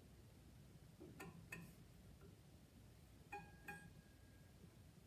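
Tensioned scroll saw blade plucked with a finger to check its tension: four faint, short metallic pings with a ringing pitch, in two pairs about two seconds apart.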